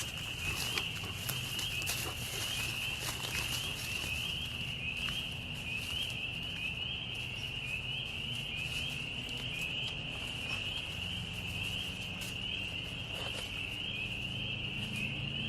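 Spring peeper chorus: many frogs peeping over one another in a dense, steady, high-pitched trill of short rising peeps. Crackling footsteps through leaf litter in the first few seconds.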